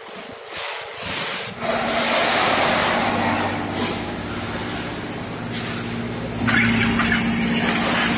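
Hydraulic scrap-metal baling press running as its ram pushes a compressed bale of scrap sheet and cans up out of the press chamber: a steady motor-and-pump hum sets in about a second and a half in and gets louder about six and a half seconds in.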